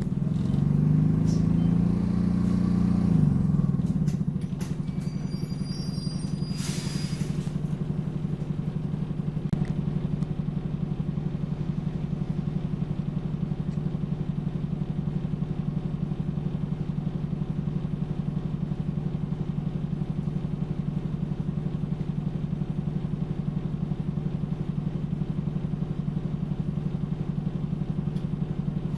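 Engine of an Optare Solo single-deck bus heard from on board: the engine note rises and falls over the first few seconds, then settles into a steady drone for the rest. A short hiss comes about seven seconds in.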